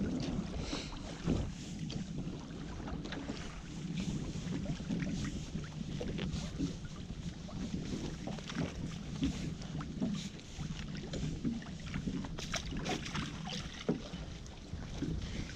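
Wet drift net being hauled by hand over the side of a boat: scattered drips, splashes and rustles of the mesh over a steady wind noise on the microphone.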